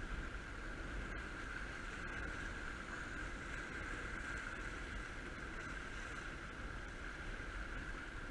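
Steady wash of sea surf against the rocks of a jetty, with low wind rumble on the microphone and a steady high hum underneath.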